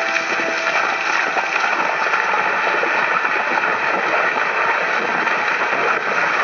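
Horses galloping through a shallow river, water splashing and spraying in a steady, dense rush of noise.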